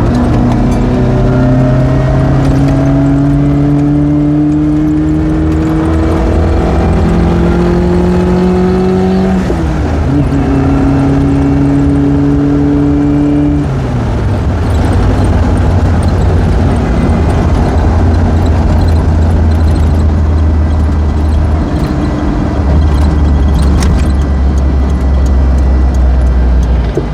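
Suzuki Sierra engine pulling through the gears. Its pitch climbs, drops sharply at a gear change about nine seconds in, climbs again, then drops at the next change about fourteen seconds in to a steady low drone.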